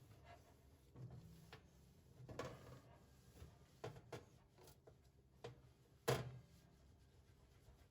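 Faint, scattered clicks and light knocks of household items being handled in a kitchen, with one sharper knock about six seconds in.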